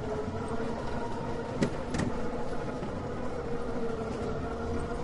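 Amusement park ride machinery running: a steady low rumble with a steady hum, and two sharp clicks about a second and a half in.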